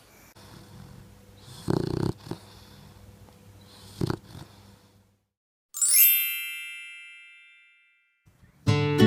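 Boxer dog snoring in its sleep: a low rumbling with two loud snores about two and four seconds in. Then a single bright chime rings out and fades over about two seconds, and acoustic guitar strumming starts near the end.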